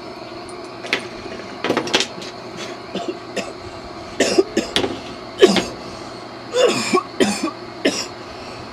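A person coughing in a series of harsh, irregular fits after a hit of cannabis smoke, the coughs coming closer together and louder from about four seconds in.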